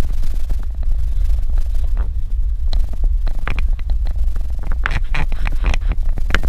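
Suzuki Jimny driving over a rough dirt road, a steady low rumble with many short knocks and rattles from the bumps.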